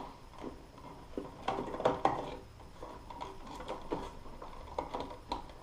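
Scattered light clicks and taps of hands handling wires and tools at an opened wall switch box.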